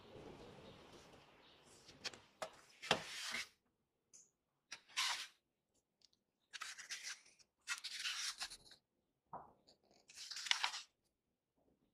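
Close-up handling noises: a faint hiss, then a series of short scraping or rustling sounds with a few sharp clicks, separated by brief silences.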